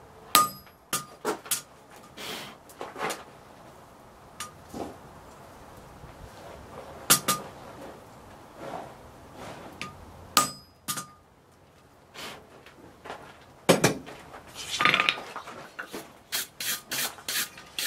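Hand hammer striking a steel touchmark stamp held against hot bar stock on an anvil: single sharp metal blows several seconds apart, each with a brief ring. A quicker run of hammer strikes comes near the end.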